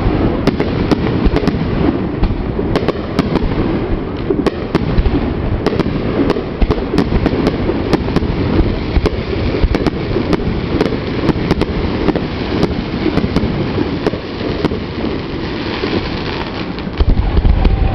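Aerial fireworks going off in a rapid barrage: many sharp bangs in quick succession over a continuous low rumble, with a heavier cluster of booms near the end.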